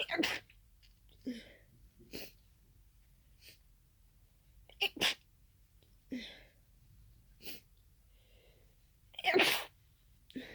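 A person's sneezing fit: repeated sneezes about a second or two apart, set off by an irritated, tickling nose, with softer breaths between them. The loudest sneeze comes near the end.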